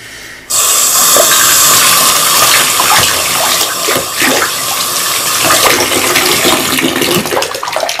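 Bathtub tap running, its stream splashing onto a silicone pop-it fidget toy held under it. The rushing water jumps up in loudness about half a second in, with a few small splashes as the toy is turned.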